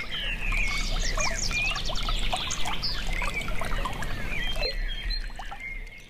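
A chorus of many small birds chirping and twittering in quick, overlapping calls over a steady rush of running water, fading down near the end.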